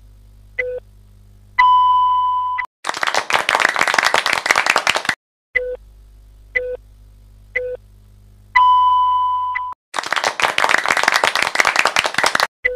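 Quiz sound effects, twice over: short beeps about once a second, then a steady high beep about a second long, then a burst of applause about two and a half seconds long.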